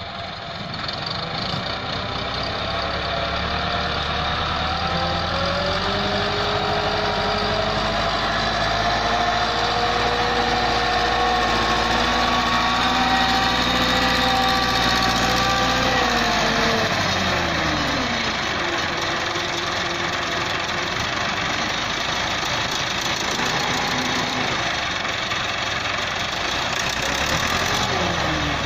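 IMT 577 tractor's diesel engine working, its revs climbing over the first few seconds and holding high. About halfway through the revs drop with a falling whine, and the engine runs on lower, dipping once more near the end.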